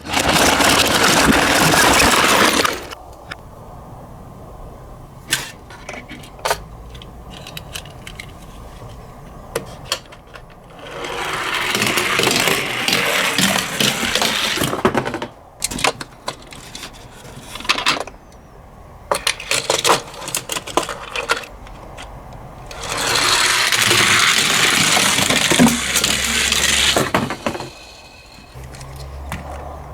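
Die-cast toy minicars rolling down a slope track: three runs of rattling rolling noise lasting a few seconds each, with small clicks and knocks between them.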